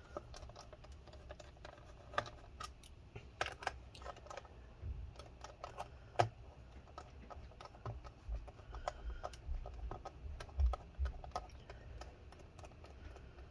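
Irregular light clicks and taps of a JIS #1 screwdriver backing screws out of a laptop's plastic bottom case, with the screws set down on a desk.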